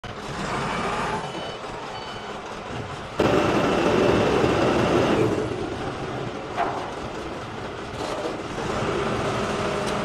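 Self-loading concrete mixer's diesel engine running under hydraulic load as the loading bucket is lifted toward the drum. The engine gets abruptly louder about three seconds in and eases back a couple of seconds later; a few short high tones sound in the first two seconds.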